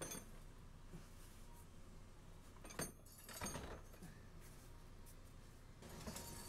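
Mostly quiet, with a few faint metallic clinks and knocks; the sharpest comes about three seconds in.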